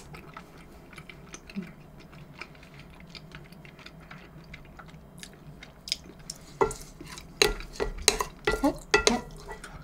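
Cutlery clinking and scraping against dishes: a few scattered light taps at first, then busier, sharper clinks that ring briefly in the last few seconds.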